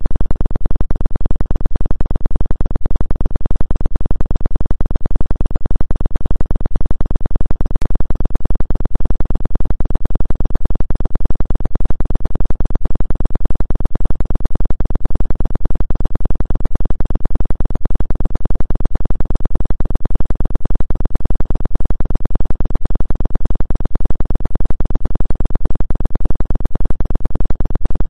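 Steady synthesized electronic drone, strongest in the deep bass and flickering rapidly, presented as a '2 Hz' healing-frequency tone for acupuncture.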